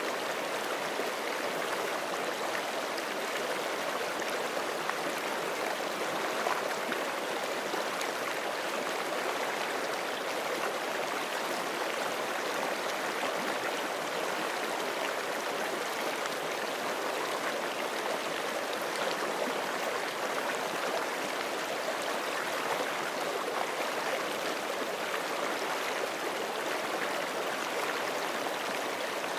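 Forest creek flowing steadily over rocks, a continuous even rush of water with small splashes and gurgles in it.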